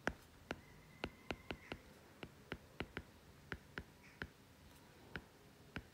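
Stylus tip tapping on a tablet screen while letters are handwritten: an irregular run of sharp, faint ticks, about three a second.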